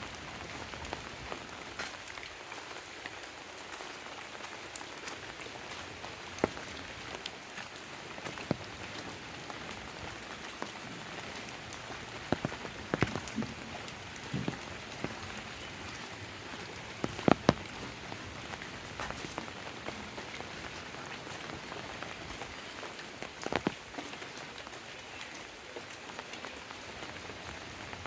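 Steady rain falling, with scattered louder drops striking close by as sharp ticks, the loudest a quick pair about two-thirds of the way through.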